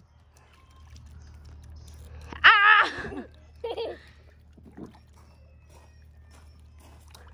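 A young child's wordless squeal with a wavering pitch about two and a half seconds in, then a shorter cry about a second later, over a low steady hum.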